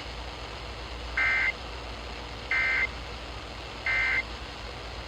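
Emergency Alert System end-of-message signal: three short, identical bursts of the SAME digital data tone ('NNNN'), evenly spaced about a second and a half apart, over a steady hiss. It marks the end of the severe thunderstorm warning.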